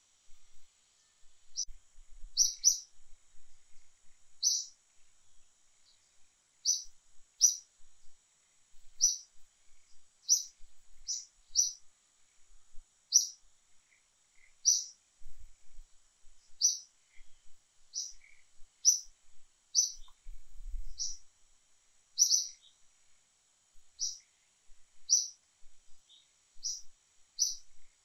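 A bird giving short, high chirps, repeated irregularly about once a second, over a faint steady high hiss.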